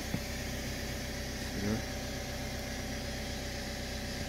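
Air suspension compressor of a BMW X5 F15, newly fitted, running with a steady hum as it pumps air into the air springs, which are still filling.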